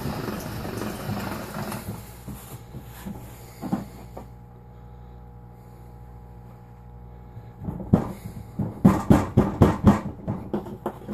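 Hand-cranked pasta machine's steel rollers rumbling as a sheet of dough is fed through, stopping about two seconds in. Near the end comes a quick run of knocks and thumps as the dough is pressed and patted flat on the tabletop.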